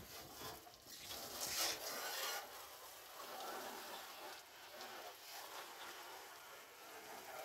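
Faint water hiss and splashing with a wet cloth scrubbing a car's tyre and wheel during a hand wash; the hiss swells louder about a second in for a second or so.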